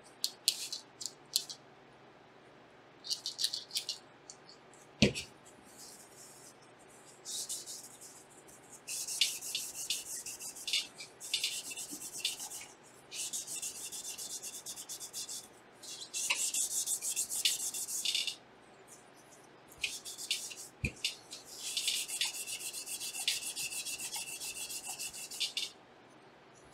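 Hands rubbing and scraping on graphics-card parts during disassembly, in bursts of one to three seconds, with two sharp knocks, one about five seconds in and one later.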